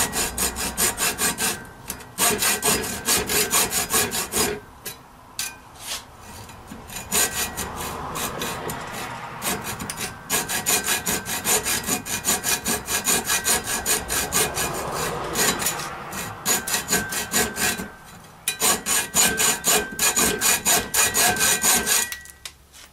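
Hand hacksaw cutting a notch into square steel stock, with steady back-and-forth strokes and a few short pauses. The sawing stops near the end.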